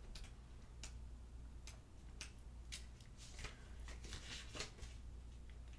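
Faint close-up handling sounds of paper and cards: soft rustles and small clicks, busiest in the second half, over a steady low hum.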